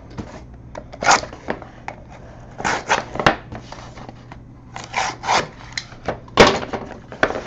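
A cardboard box of trading cards being handled and opened: a series of separate rustles, scrapes and knocks, a few of them louder.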